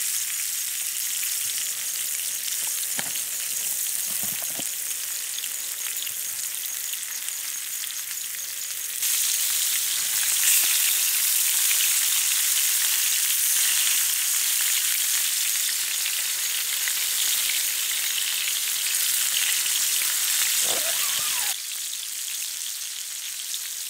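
Floured fish steaks frying in hot oil in a large pan: a steady sizzle. The sizzle steps up louder about nine seconds in and drops back about twelve seconds later.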